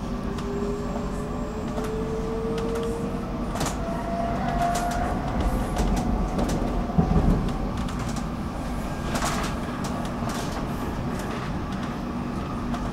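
Stockholm metro train running, heard from on board: a steady rumble with a faint motor whine slowly rising in pitch, and scattered clicks from the wheels on the track. A louder knock comes about seven seconds in.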